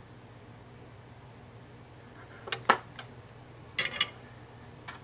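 Small metal tools clinking and tapping on a workbench during wire soldering, two quick clusters of clicks about two and a half and four seconds in, over a steady low hum.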